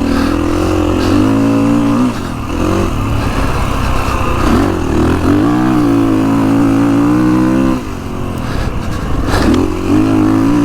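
Kawasaki KX450X's single-cylinder four-stroke engine revving under load while the off-road motorcycle is ridden hard, its pitch rising and falling with the throttle. It eases off briefly about two and four and a half seconds in, and for longer around eight seconds in.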